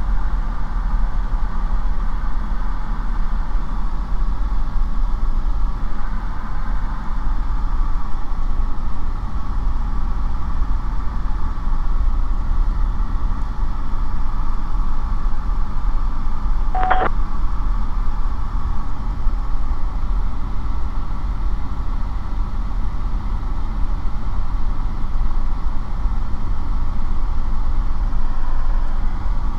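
Steady drone of a light aircraft's piston engine and propeller in cruise, heard from inside the cockpit. A brief radio click cuts in once, about 17 seconds in.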